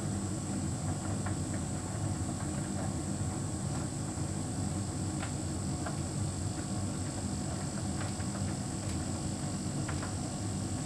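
Hotpoint heat pump tumble dryer running: a steady low hum, with faint light ticks now and then.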